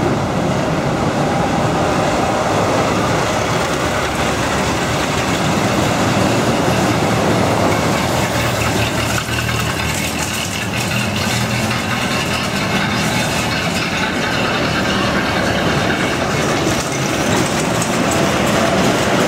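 Antique parade cars driving slowly through a wooden covered bridge: several old engines running with a steady low rumble, heard from inside the bridge.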